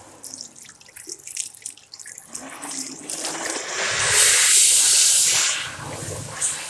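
Water from a commercial sink tap running and splashing into the basin. It starts with scattered drips and splashes, swells to a loud hiss about four seconds in, then eases off.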